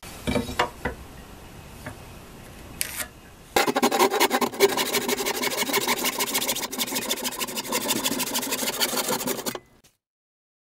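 A few light knocks as the board is handled, then a handsaw cutting through a pine 2x4, a loud, rasping sound starting about three and a half seconds in and stopping abruptly near the end.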